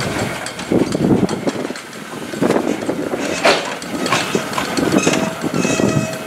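Narrow-gauge 2-6-2T steam tank locomotive No. 7 moving slowly at close range: uneven chuffs, metallic clanks from the running gear, and hissing steam.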